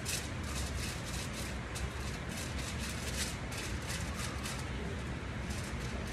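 Aluminium hair foils crinkling and rustling as they are handled and folded, in short irregular crackles several times a second, over a steady low hum.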